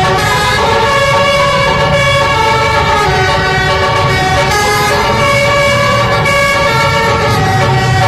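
Basuri 'telolet' multi-tone bus horn playing a melody of held notes that change pitch about once a second, over a low rumble.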